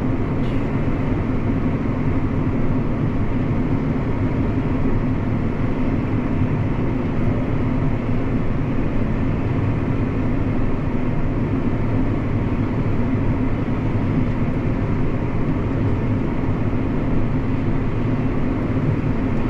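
8310 tractor's engine running at a steady, even drone, heard from inside the cab.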